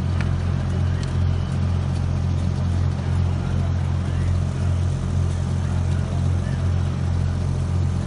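Steady low rumble of machinery running at a constant speed.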